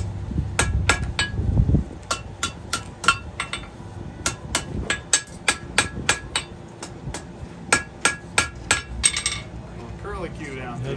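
Blacksmith's hammer striking hot steel on an anvil: a run of ringing blows, about three a second with short pauses, that stops about nine seconds in.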